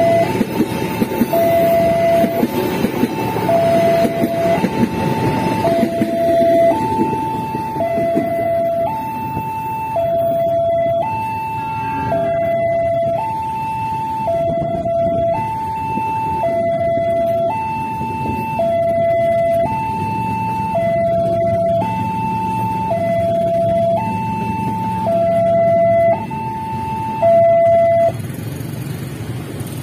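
Railway level-crossing warning alarm sounding its two-tone high–low signal, alternating about once a second, over the rumble of passenger trains running past on the tracks. The rumble is heaviest for the first several seconds.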